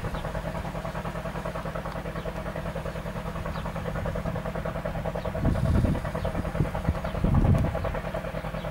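An engine idling steadily with a fast, even pulse, with two brief low rumbles about five and a half and seven and a half seconds in.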